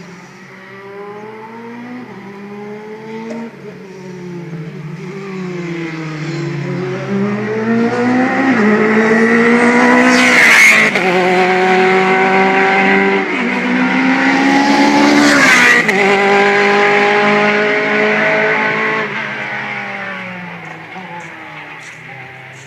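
Formula 3 race cars passing at speed, several engines heard at once. The sound builds as they approach, two cars go by close in the middle about five seconds apart with the engine pitch dropping as each passes, and the sound fades away near the end.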